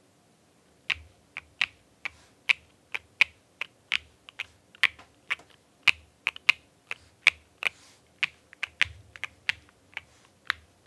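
Typing on a Monsgeek M5 aluminum full-size mechanical keyboard built with Akko V3 Cream Yellow Pro linear switches on a polycarbonate plate, with the tape mod and tall-profile PBT keycaps. Separate keystrokes at about three a second begin about a second in and stop just before the end, giving the poppy sound this build is meant for.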